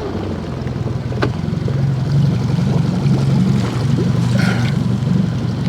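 An engine running steadily, its low drone wavering slightly in pitch, under the even hiss of heavy rain, with a single sharp click about a second in.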